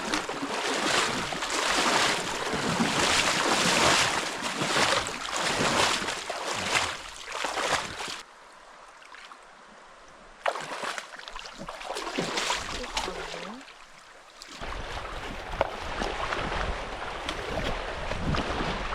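Legs wading through knee-deep river water, sloshing and splashing with each stride. The splashing drops away for several seconds in the middle and then comes back as a steadier water rush with wind rumbling on the microphone.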